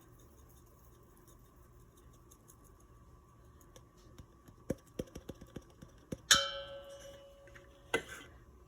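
Kitchen utensils and seasoning containers being handled over a mixing bowl: a quiet stretch, then a series of light taps, as when seasoning is tapped out into the flour. About six seconds in there is one sharp ringing clink that dies away over a second, and a duller knock follows near the end.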